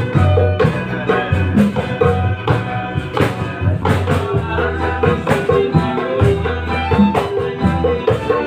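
A band playing a song, with kendang hand-drum strokes over a steady bass line and melody.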